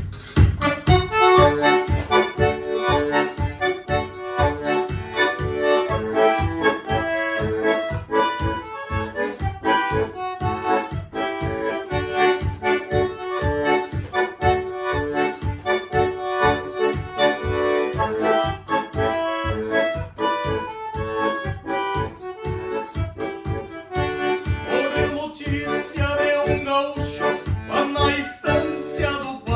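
Bandoneon playing a lively gaúcho folk melody, with a steady low beat underneath.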